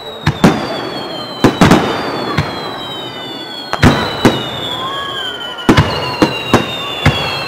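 Aerial firework shells bursting in a rapid run of sharp bangs, about a dozen, with several whistling tones sliding slowly down in pitch over them.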